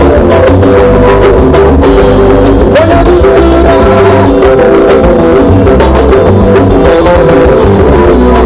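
Loud live band music, drums included, with a man singing into a microphone.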